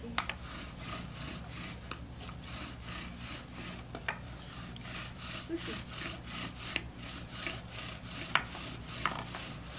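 Bow drill grinding: the wooden spindle, spun back and forth by the bow, rubs in the fireboard with a rhythmic stroke-by-stroke grind. It is burning in a new hole in the board before the notch is cut.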